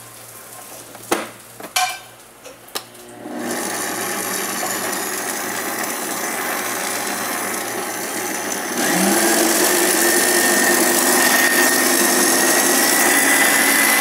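Stand mixer with a balloon whisk whipping milk and Dream Whip powder into cream. A few clicks and knocks come first, then the motor starts about three seconds in and runs steadily, stepping up to a louder, faster speed about nine seconds in, with a whine that rises slightly.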